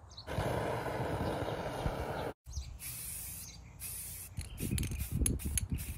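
Aerosol spray-paint can hissing in several bursts as paint goes onto a steel crossmember brace. A string of irregular clicks and knocks follows near the end.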